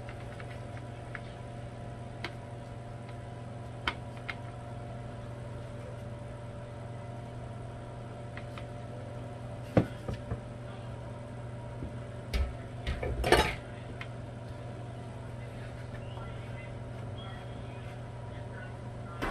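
Air fryer running with a steady fan hum. A few light clicks and a brief clatter of kitchen items about 12 to 13 seconds in.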